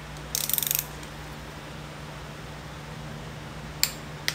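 Ratcheting torque wrench clicking rapidly for about half a second as it is swung back on a fuel injector hold-down bolt, then two sharp clicks near the end as the wrench clicks off at its 120 inch-pound setting. A steady low hum runs underneath.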